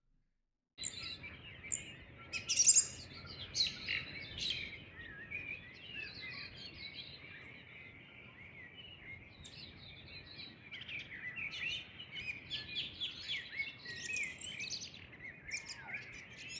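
A chorus of many birds chirping and singing together at dawn, a dense overlapping stream of short calls and warbles. It starts abruptly about a second in, after a moment of silence.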